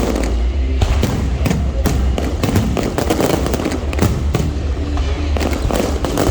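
Aerial fireworks bursting overhead in rapid, irregular bangs, with music playing underneath.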